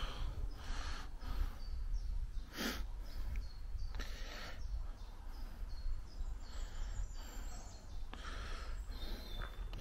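Quiet outdoor ambience with a steady low rumble and faint rustling, and one short, sharp sniff-like noise a little under three seconds in.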